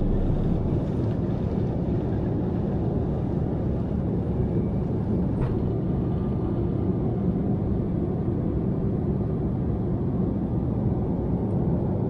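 Steady cabin noise inside an Embraer E170 airliner in flight: an even rush of turbofan engine and airflow noise, heaviest in the low range. A faint click about five and a half seconds in.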